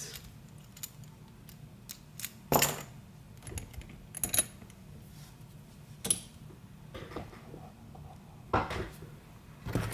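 Scattered light metallic clicks and clinks from an Abloy DiskLock and its key being handled, with a few louder clinks a second or two apart.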